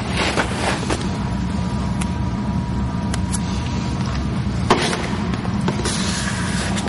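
Self-adhesive vinyl camouflage film being pressed and squeegeed onto a boat's side by hand: short scrapes and rustles of the film, the sharpest about two-thirds of the way through, over a steady low hum.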